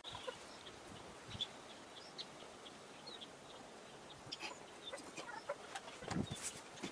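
Faint outdoor background hiss with scattered short, high, bird-like chirps and clicks, busier in the second half, and a louder low knock about six seconds in.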